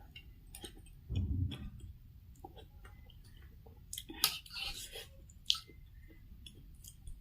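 Close-up chewing and wet mouth sounds of a person eating pork thukpa noodle soup, with scattered small clicks. There is a low muffled thud about a second in.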